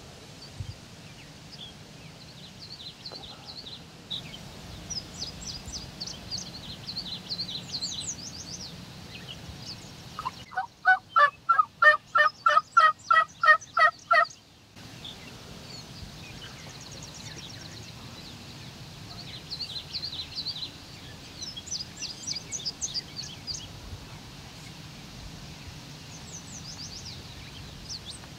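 A loud, even run of about fifteen turkey yelps, roughly four a second, lasting some four seconds in the middle, with songbirds chirping throughout.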